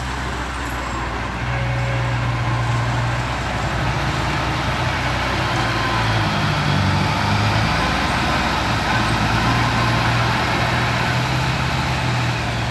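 Construction machine's engine running steadily. Its pitch rises for a couple of seconds about six seconds in, then settles back.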